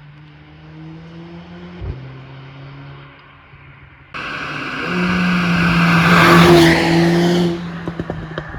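Mercedes-AMG CLA 45's turbocharged four-cylinder engine running at a steady idle, with one sharp pop about two seconds in. About four seconds in it suddenly goes loud under hard acceleration, builds for about three seconds and cuts off. A short run of exhaust crackles follows.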